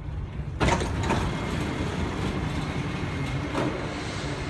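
Dubai Metro train at a station stop: a steady low rumble, then a sudden loud clunk about half a second in as the doors open, followed by a louder steady hiss with a faint high tone and a few lighter knocks.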